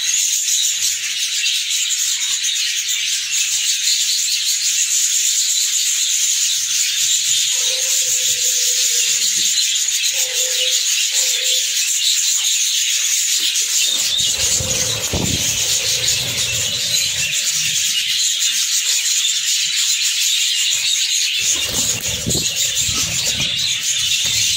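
A flock of budgerigars chattering and chirping in a dense, steady high-pitched din. Low bumps of the phone being handled come through about halfway in and again near the end.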